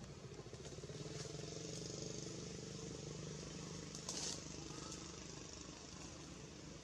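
A motorbike engine passing by: a steady hum that swells about a second in and fades away after about five seconds. There is a brief crackle about four seconds in.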